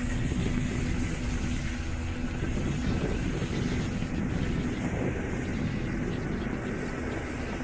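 Mercury outboard motor running at speed on a speedboat, under heavy wind buffeting on the microphone and the rushing water of the wake.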